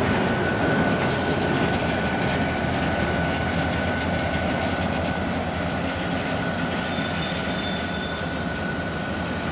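Short freight train of locomotive, covered hopper and caboose rolling away, its wheels rumbling on the rails with a steady high-pitched squeal. A second, higher squeal joins about halfway through, and the sound slowly fades.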